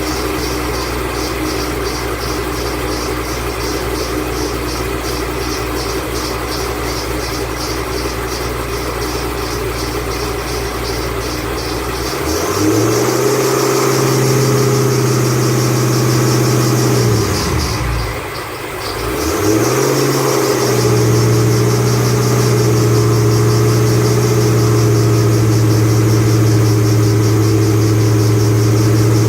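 2008 Ford Mustang Bullitt's 4.6-litre V8 idling with a faint high chirping about two or three times a second. About twelve seconds in it is brought up to a higher steady speed. It dips back briefly a few seconds later, comes up again and holds.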